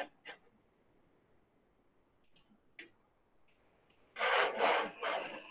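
Faint computer mouse clicks at the start and once more near the three-second mark, then two short rushes of noise close to the microphone about four seconds in.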